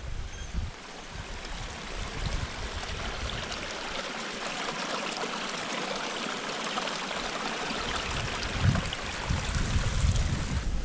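Small mountain stream trickling and splashing over rocks, growing louder toward the middle and easing again, with a few low thumps near the start and near the end.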